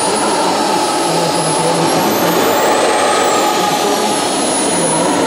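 Model jet turbine of an RC F/A-18 running at low thrust while the model taxis, a steady roar with a high-pitched whine that rises and then falls in pitch about midway.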